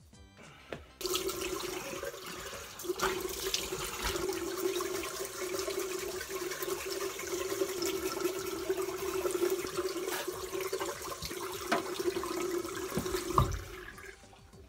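Tap water running into a washbasin, a steady rush of water with a low hum that starts about a second in and stops shortly before the end.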